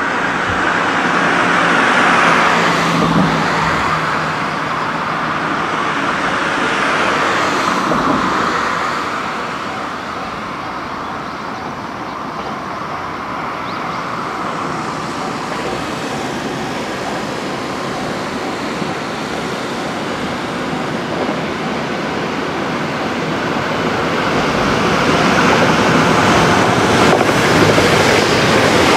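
Electric limited-express train running on the line, its steady rolling rush swelling louder near the end as it passes close by.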